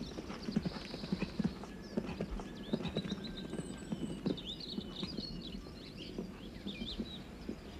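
Horse's hoofbeats as it canters and jumps fences on turf, an uneven run of dull thuds. Birds chirp high in the background.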